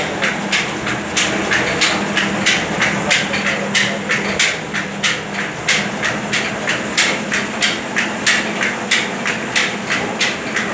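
Belt-driven Himal disc flour mill running: an electric motor and long flat drive belts turning large pulleys, with a regular clack about three times a second over a steady mechanical hum.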